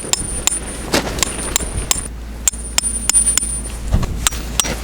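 Metal tent peg being hammered in with regular strikes, about three a second, each ringing with a high metallic tone, over a low rumble of wind on the microphone.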